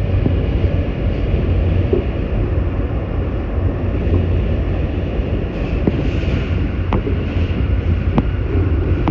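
R160 subway car running slowly through curved elevated track, heard from inside: a steady low rumble with a few sharp clicks as the wheels cross rail joints and switches, and a brief hiss near the end.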